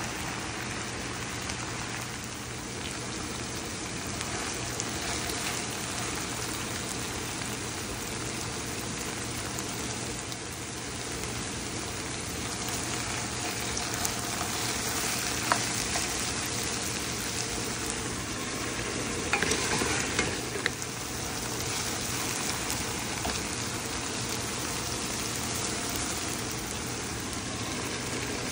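Food frying and sizzling steadily in hot oil in a pan, with occasional stirring scrapes and clicks, loudest in a short burst of stirring about twenty seconds in.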